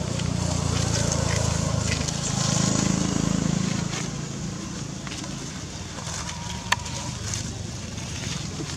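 A low rumble that swells over the first few seconds and then eases off, with one sharp click about two-thirds of the way through.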